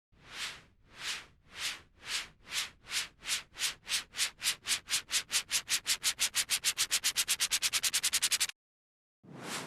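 Synthesized white-noise swells in FL Studio imitating a train: hissing pulses that speed up steadily from about two a second to about eight a second and grow louder, like a locomotive chugging faster, then cut off suddenly. Another single swell starts near the end.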